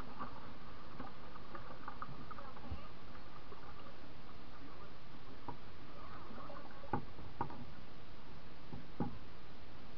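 Steady rush of river water moving past the bow of a drifting canoe. A few sharp knocks break in during the second half, the loudest about seven and nine seconds in.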